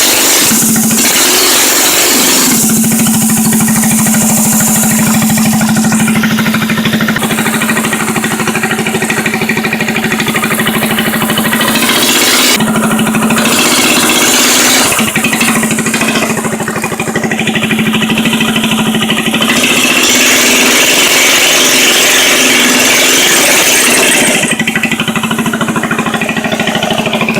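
Small 7 hp single-cylinder engine on a homemade three-wheel bike running loud and steady on its first run, its sound shifting several times as it is opened up.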